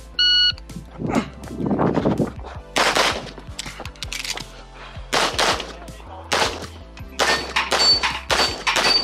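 A shot timer's short electronic start beep, then a string of pistol shots fired in quick pairs and clusters, with short pauses between groups.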